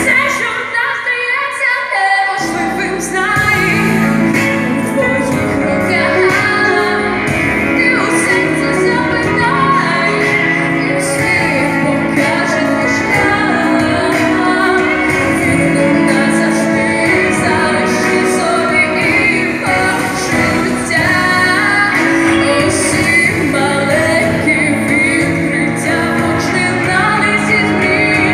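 A young woman singing a song solo into a microphone over instrumental accompaniment; the bass and fuller accompaniment come in about two seconds in.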